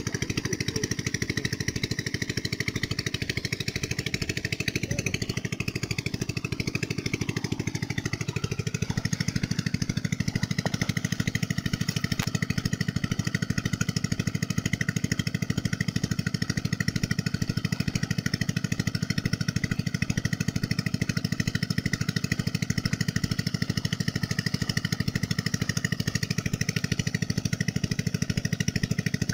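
A small engine running steadily, with a fast, even pulsing drone that shifts slightly about eight seconds in.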